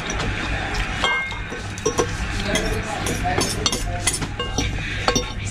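Metal forks clinking and scraping against ceramic plates during a meal, a series of short sharp clinks, with faint voices in the background.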